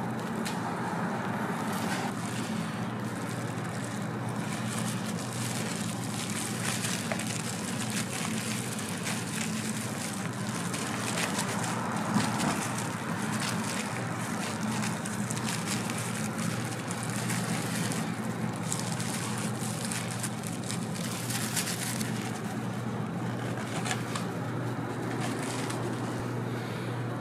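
Steady background hum and noise of a street food stall, with scattered light rustling and crinkling as a crepe is rolled and wrapped in a paper cone.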